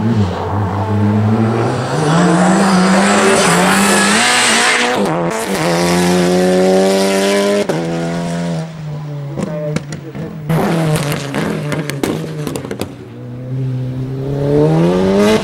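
Audi RS3 TCR race car's turbocharged 2.0-litre four-cylinder accelerating hard, its revs climbing and then falling sharply at each gearshift. Midway the revs fall away with a patch of sharp crackles, then climb again near the end.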